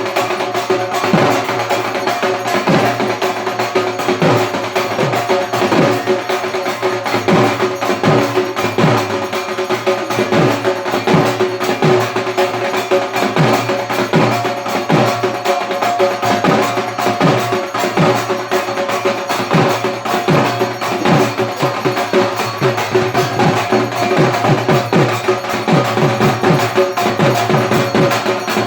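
Dhak drums played in a fast, unbroken rhythm of dense stick strokes, the traditional Durga Puja drumming, with a steady metallic ringing sounding over the beat.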